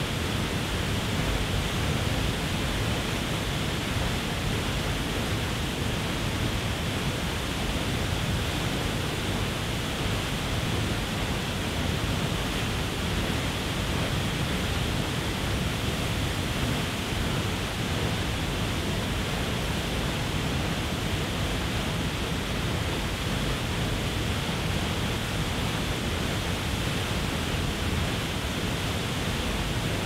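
A waterfall crashing into its plunge pool: a steady, unbroken rush of falling and churning water, deepest and heaviest in the low end.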